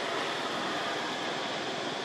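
Steady, unchanging outdoor background hiss with no distinct events.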